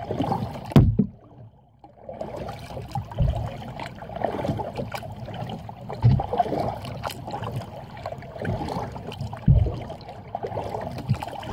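Kayak paddle strokes pulling through the water, with splashing and dripping from the blades, and a few low thumps every few seconds.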